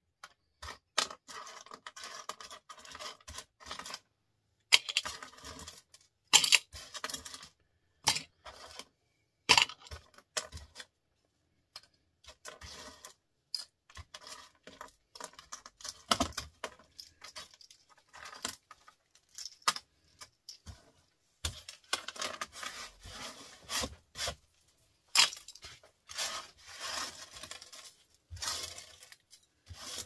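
Small metal and plastic parts of microwave microswitches being handled, with irregular clicks, clinks and short scrapes in quick runs separated by brief pauses.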